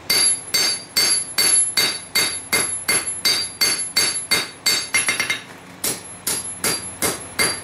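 Steady hammer blows on hot stainless steel over an anvil, about two and a half a second, each strike ringing, as the knife's tip is forged out. The blows stop briefly about five and a half seconds in, then resume.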